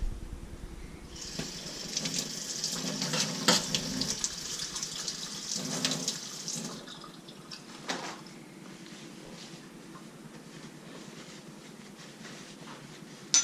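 Water running from a tap for about five seconds, then turned off, followed by a few light knocks.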